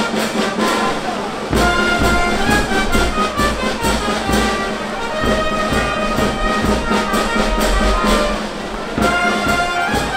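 Brass band music with trumpets and trombones playing held notes over a steady beat.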